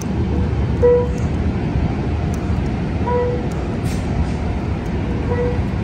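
Steady low rumble of an Amtrak passenger train standing at the platform with its diesel running, with three short beeps about two seconds apart.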